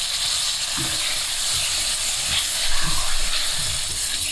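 Steady hissing sizzle of browned chicken pieces in a hot oiled pan as tomato sauce goes in, the liquid steaming on contact.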